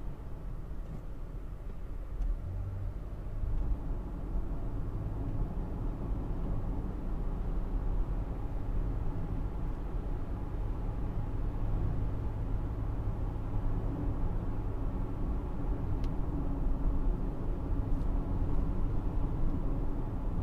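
Car driving, heard from inside the cabin: a steady low rumble of engine and road noise, with the engine tone firming up about three seconds in. Two faint ticks near the end.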